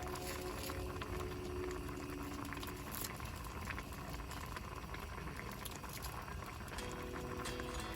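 Food bubbling and crackling as it simmers in a pot, under quiet background music whose held notes fade out about three seconds in and return near the end.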